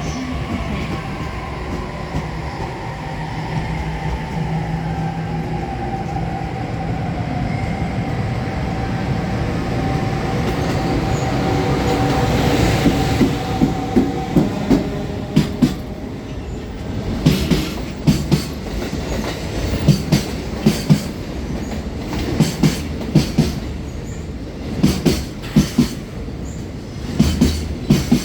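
A JR Freight EF210 electric locomotive and its Koki container wagons passing at low speed. Over the first half a whine slowly falls in pitch under steady rolling noise. From about halfway on, the wagons' wheels clack over the rail joints in groups of sharp clicks every two seconds or so.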